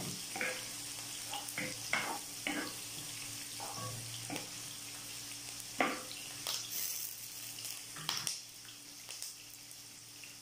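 Chopped onions sizzling in hot oil in a frying pan, being sautéed until soft, with a steady hiss. Scattered taps and scrapes of a wooden spatula stirring them against the pan.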